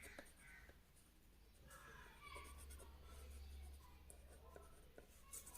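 Faint scratching of a pencil on paper, strokes of shading as a branch is darkened.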